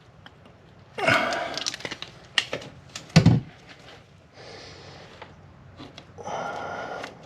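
Caulking gun squeezing seam sealer into a sheet-metal seam: sharp clicks and a thump from the gun near the middle, among several short hissing sounds.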